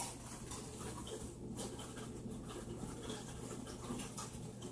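Running aquarium equipment: a steady low hum with faint, irregular water trickling and patter.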